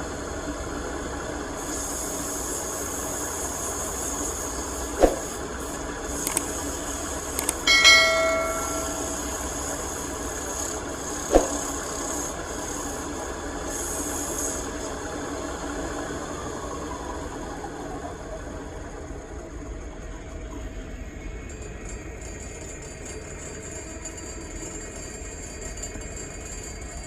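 Wood lathe running with a steady mechanical hum and hiss, with two sharp knocks and a ringing metallic clang about eight seconds in. From about two-thirds through, a falling tone sounds as the machine winds down.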